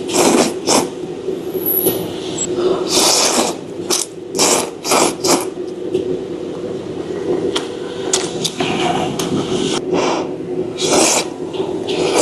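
A person slurping beef huimian noodles and broth, close to the microphone: a series of short, irregular slurps, over a steady low hum in the room.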